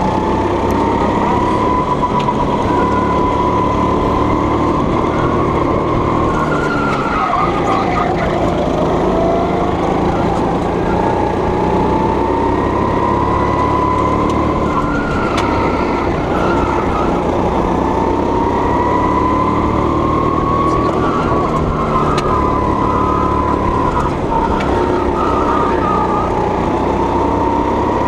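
Go-kart engine running on track as heard from the driver's seat, its pitch rising and falling again and again as the kart speeds up and slows for corners. Its pitch drops sharply about seven seconds in, then climbs back.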